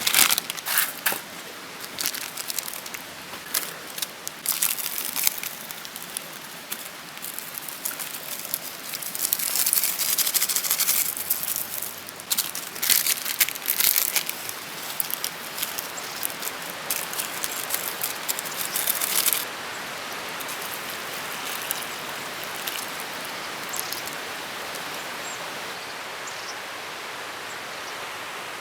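Irregular rustling and crinkling with sharp crackles over a steady hiss; the rustling stops suddenly about two-thirds of the way in, leaving only the even hiss.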